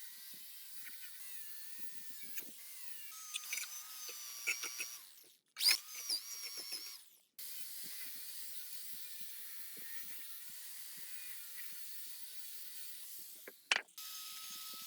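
Metal tool and mechanism clicks and ratcheting over a faint steady hum. The clicks bunch up into a louder rattling stretch a few seconds in, and the sound cuts out abruptly a couple of times.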